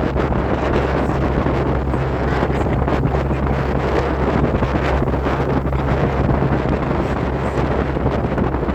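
Wind blowing across the microphone: a steady, loud rushing noise, heaviest in the low end.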